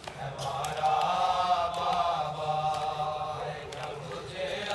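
Men's voices chanting a noha, a Shia Urdu lament, unaccompanied, in long held melodic lines.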